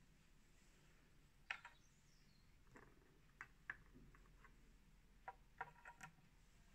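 Light plastic clicks and taps as capped cuvettes are lifted out of a colorimeter's sample slot, set down in a plastic rack, and another cuvette is pushed into the slot. There are about eight sharp clicks, scattered unevenly and in small clusters, over faint room hiss.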